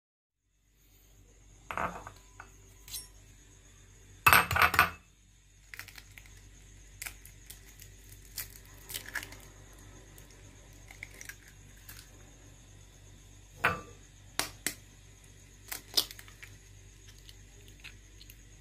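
Eggs being cracked by hand over a glass bowl: scattered sharp taps and clinks of a metal utensil, eggshell and glass, the loudest a quick run of knocks about four seconds in.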